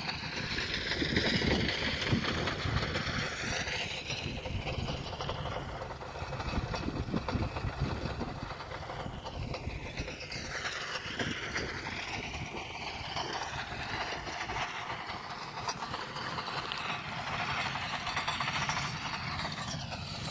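Farm tractor engine running while pulling a beet-hoe cultivator through the field, swelling and fading several times as it moves past.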